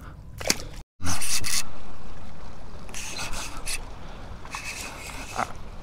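Water splashing and trickling, starting suddenly and loudly about a second in and slowly fading.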